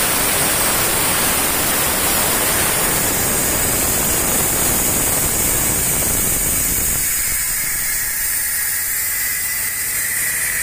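Loud, steady hiss with no pitch to it; about seven seconds in its deeper part falls away, leaving a thinner high hiss.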